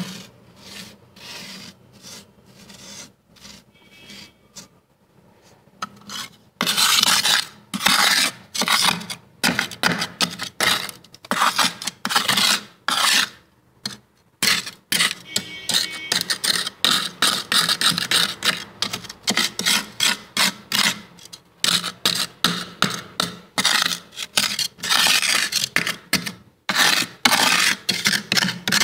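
Soft freezer frost being scraped in short, repeated strokes. The strokes are lighter at first, with fingertips, and grow much louder and faster from about six seconds in.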